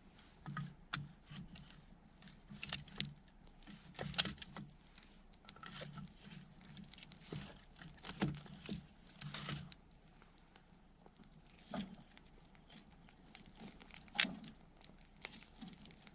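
Wood bonfire crackling, with irregular sharp pops and snaps; the loudest snaps come about 4 seconds in and again near 14 seconds.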